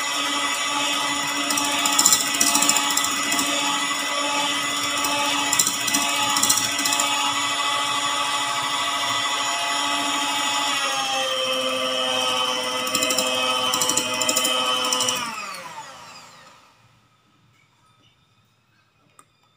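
Electric hand mixer whipping egg whites in a stainless steel bowl: the motor runs steadily, with occasional clicks of the beaters against the bowl. About eleven seconds in its pitch drops slightly, and about fifteen seconds in it is switched off and winds down to silence. The whites are being beaten to stiff peaks.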